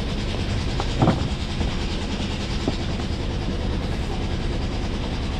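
Sailboat's inboard diesel engine idling with a steady low rumble, with a sharp knock about a second in.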